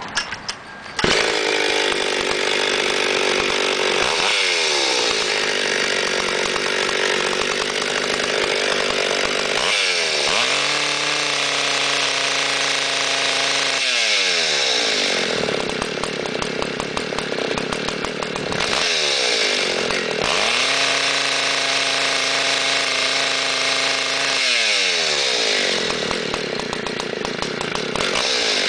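Homelite SXL-925 two-stroke chainsaw starting about a second in, then running while the throttle is worked several times. The pitch shifts up and down but the saw will not rev out, with the carburetor mixture needle set one turn out.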